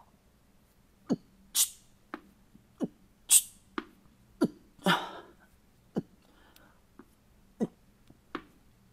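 A man's short, sharp exhales during a set of seated bent-over dumbbell rear lateral raises, some hissed through the teeth, coming about once or twice a second in time with the reps.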